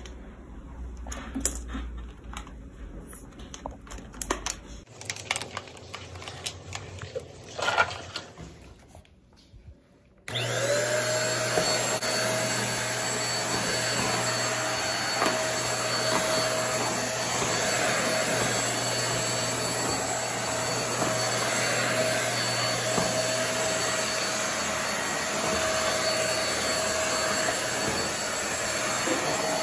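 Scattered clicks and knocks, then about a third of the way in an upright stick vacuum cleaner with a built-in mop is switched on. Its motor spins up quickly and runs steadily with a constant whine.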